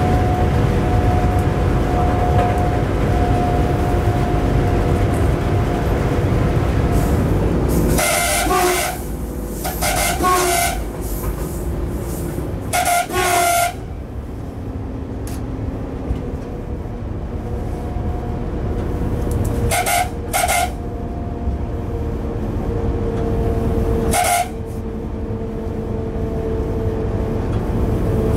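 Eurosprinter electric locomotive running at speed, heard from inside the cab, with a steady faint whine over the running noise. Its horn sounds in short blasts: three longer ones close together about a third of the way in, then a quick pair, then a single short toot.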